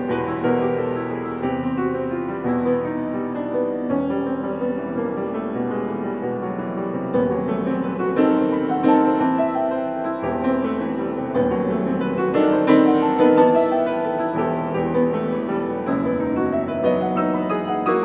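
Baldwin grand piano played solo in a fast, dense passage of many quick notes, swelling louder about two-thirds of the way through.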